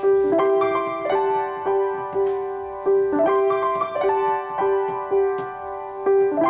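Grand piano played solo: one middle-register note repeated about twice a second under chords that change every couple of seconds.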